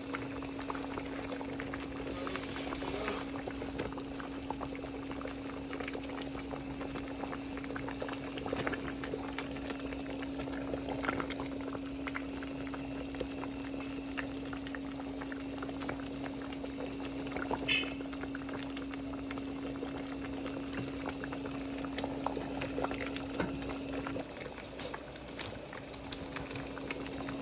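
A pot of meat stock boiling with a steady bubbling, with a few light clicks of utensils against the pot, over a steady low hum that drops away briefly near the end.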